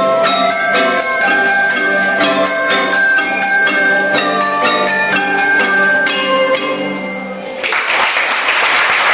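A children's ensemble playing a simple tune on bell-like tuned percussion over a steady low note. About seven and a half seconds in the music ends and applause breaks out.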